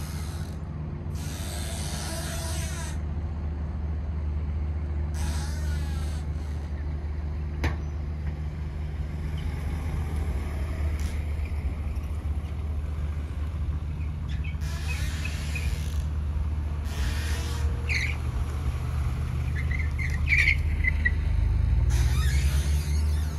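Steady low mechanical hum, like an engine or generator running, that grows louder near the end. Several brief bursts of hiss and a few faint chirps lie on top of it.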